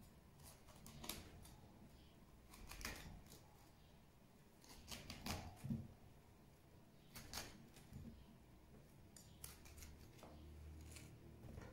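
Faint, crisp crunching and snapping as a paring knife cuts through the stalk of a raw cauliflower and florets are broken away, in scattered short bursts with light knocks of the knife on a plastic cutting board.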